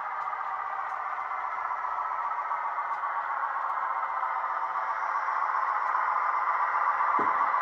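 Model railway train, a model class 218 diesel locomotive pulling coaches, running along the track with the steady rolling rattle of motor and wheels, growing louder as it approaches. A brief knock comes near the end.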